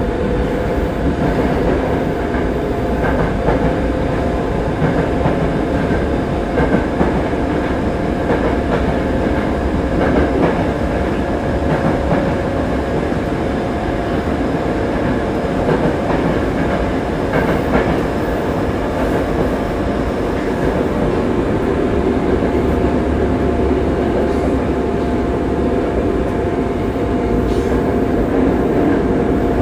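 Yokohama Blue Line 3000A subway train running at steady speed: a steady tone from the Mitsubishi GTO-VVVF traction equipment over the rumble of wheels on rail, with a few clacks from the track.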